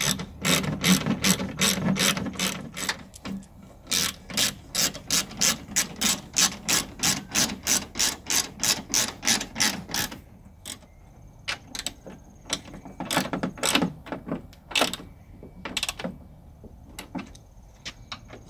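Socket ratchet wrench clicking as it is swung back and forth, running in the headlight assembly's mounting bolts. The clicks come steadily at about three to four a second, then after about ten seconds turn slower and irregular.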